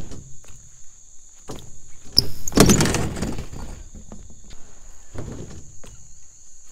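BMX bike crashing onto a skate ramp on a bailed trick: a loud clatter and scrape of the bike hitting and sliding on the ramp about two seconds in, after a couple of lighter knocks of the bike on the coping. A steady high insect buzz runs underneath.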